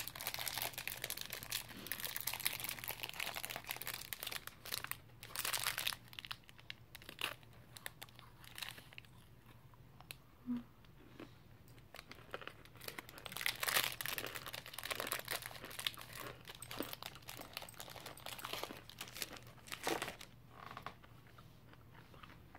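Crinkling of a Violet Crumble bar's foil-lined wrapper as it is handled and peeled back, in crackly bursts that are densest over the first six seconds and return a few times later, with some crunching of the honeycomb bar.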